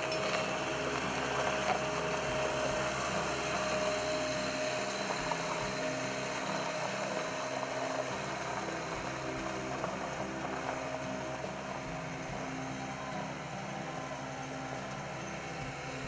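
Bobcat 751 skid steer's diesel engine running steadily as the machine is driven.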